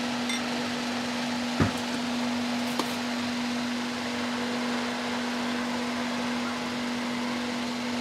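Steady low machine hum with a hiss, broken by one sharp knock about one and a half seconds in and a lighter click near three seconds, as a blender jug is changed.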